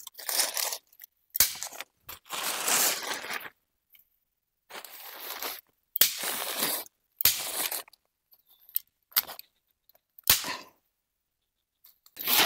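Plastic sheeting crinkling in several short bursts as it is handled and pressed against the shelter's pole frame, with a few sharp clicks among them.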